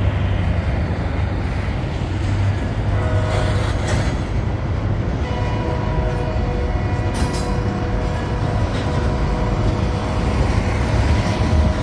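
Freight train of BNSF refrigerated boxcars rolling across a railroad trestle overhead: a steady low rumble of wheels on the rails. A few steady tones join in about five seconds in and fade out near the end.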